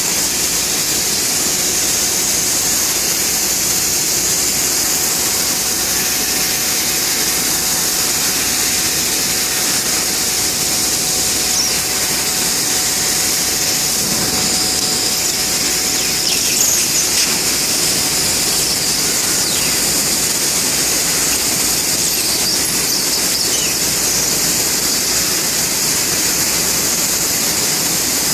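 Steady, loud high-pitched hiss of a Bystronic CNC laser cutting machine running, with a faint steady tone underneath that stops about halfway through.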